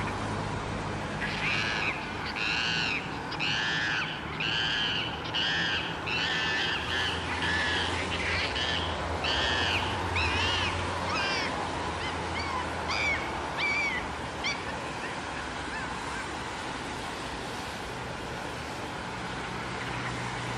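A rapid series of high, honking animal calls, about two a second, that thin out to a few scattered calls and stop about two-thirds of the way through. A low steady hum runs underneath.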